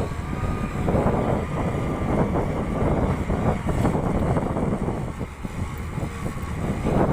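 Diesel engine of a Volvo EW160B wheeled excavator working under load, its level surging and dipping unevenly.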